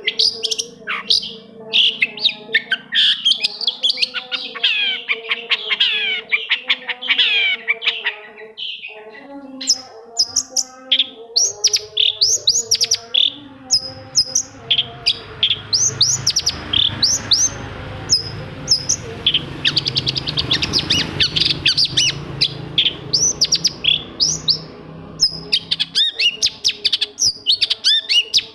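Long-tailed shrike (cendet) singing a rapid, varied run of sweeping chirps and whistles, almost without pause. A low background rumble rises through the middle and fades again before the end.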